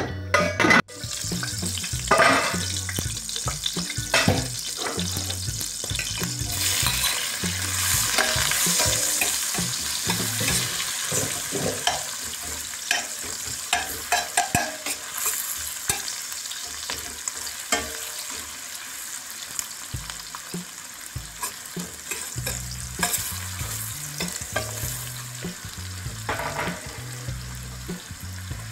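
Sliced onions sizzling as they fry in hot fat in a stainless steel pan, with a metal spoon clicking and scraping against the pan as they are stirred.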